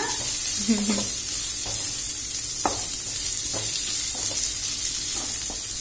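Julienned capsicum, cabbage and carrot sizzling in hot oil in a deep pan, stirred with a spatula. Under the steady sizzle the spatula scrapes and knocks against the pan every second or so.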